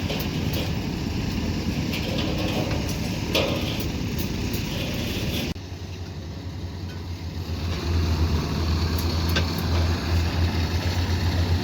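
Diesel engine of heavy earth-moving machinery running, with scattered metallic knocks in the first half. The sound changes abruptly about halfway through, then the engine hum grows louder near the end.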